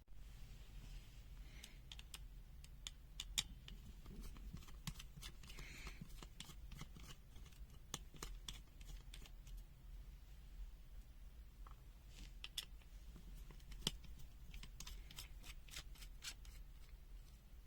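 Scattered light clicks and taps from hands and a tool taking apart a small plastic multimeter, opening it up to get at its circuit board and LCD assembly. A few sharper clicks stand out.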